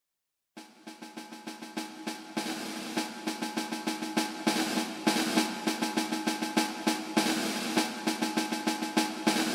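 Snare drum roll in background music, starting about half a second in and building in loudness over the next few seconds before holding steady.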